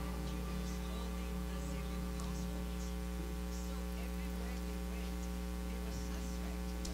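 Steady electrical mains hum on the audio feed, with faint scattered sounds of people stirring.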